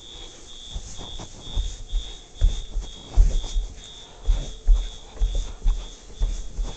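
Fire alarm horn sounding in march time, a high tone pulsing about twice a second. Over it come heavier low thuds of footsteps close to the microphone, loudest through the middle and end.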